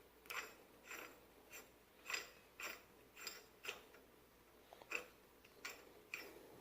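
Faint metallic clicks and scrapes, about two a second, as the axle nut on a full-floating hub is screwed down by hand onto the threaded spindle.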